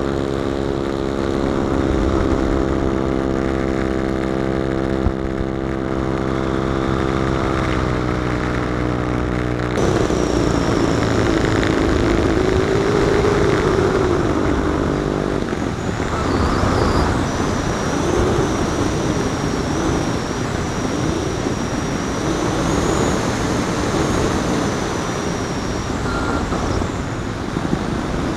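Engine of a giant-scale (75%) RC Piper Cub model airplane, recorded on board in flight, running at a steady speed, then cutting abruptly about ten seconds in to a rougher sound of engine and rushing air. In the second half the airflow rush dominates, with a thin high whistle.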